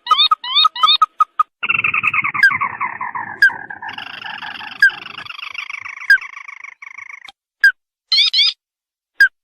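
Crake calls played as a bird-trapping lure. A fast series of short rising notes gives way to a long, descending rattling trill lasting several seconds, then a few scattered short notes near the end.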